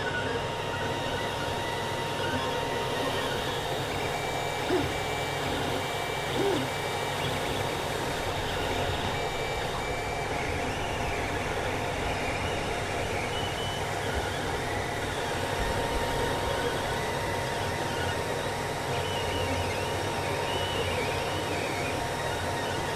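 Creality CR-10 3D printer running a print: its stepper motors sing short tones that change pitch from move to move over the steady whir of its fans. Two brief bumps come a few seconds in.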